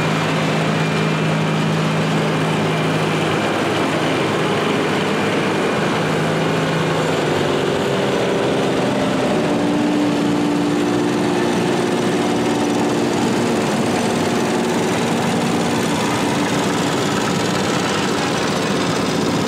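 The small engines of several garden tractors running as the tractors drive slowly past one after another. A low steady engine note fades after the first few seconds, and a higher-pitched one takes over around the middle.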